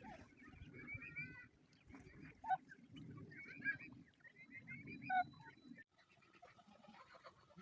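Faint calls of farmyard poultry: short, pitched calls come in clusters throughout, over a low background rumble.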